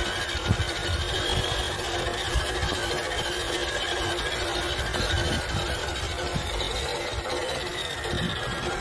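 Small electric motor and gearbox of a 1/10-scale RC crawler whining steadily as it drives, over an uneven low rumble with small knocks.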